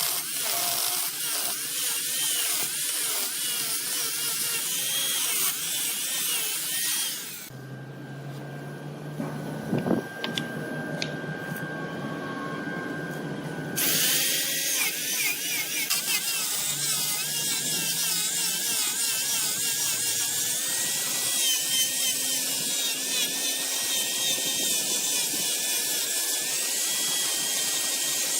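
Wood lathe running while a turning tool cuts the spinning wood, a scraping, hissing sound with a wavering whine. About halfway through it changes for a few seconds to a quieter steady motor hum, then the cutting sound returns.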